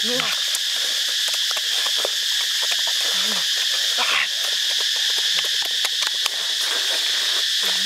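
A steady, high-pitched insect chorus dominates throughout. Over it come short hummed murmurs and small clicking mouth sounds from people eating.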